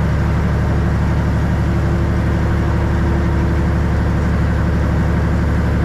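Hitachi EX75UR excavator's diesel engine running at a steady speed while its hydraulic dozer blade is worked.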